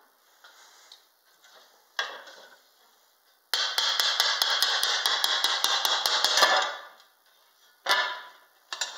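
Glass cutter's wheel scoring a sheet of stained glass: a steady, gritty scratching with fine crackles lasting about three seconds, with a few sharp clicks of glass and tool before and after.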